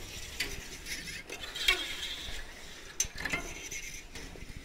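Cutting wire sawn through the adhesive bead holding a camper van's large glass window, rasping in uneven strokes with a few sharp clicks and clinks.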